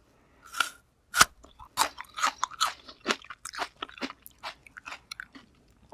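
Close-miked chewing of raw kuruma prawn: an irregular run of short crunching crackles, the loudest about a second in.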